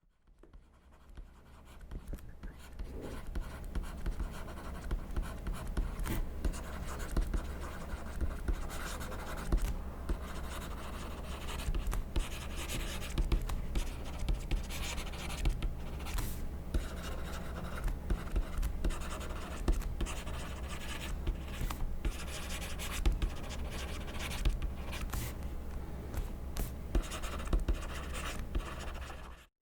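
Pen writing on paper: continuous scratching of the nib with many short, quick strokes and taps. It fades in over the first couple of seconds and cuts off suddenly near the end.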